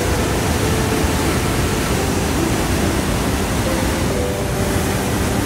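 Steady, unbroken roar of a waterfall's falling water.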